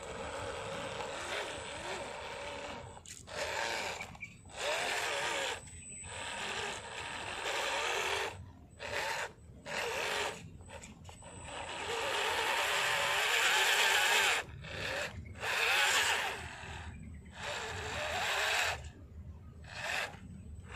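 MN99S 1:12 RC crawler's small electric motor and gearbox whining in repeated bursts with short pauses between them as the throttle is worked, driving the truck up a loose dirt slope.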